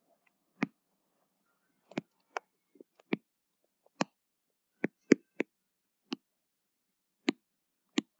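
Sharp, irregular clicks and taps from the pen or stylus as handwriting is put down on a digital writing surface, about a dozen at uneven spacing, one or two a second, with silence between them.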